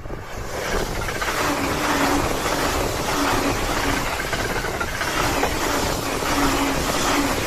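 Electric train running past close by: a loud, steady rush of wheel and rail noise, with a low hum that comes and goes.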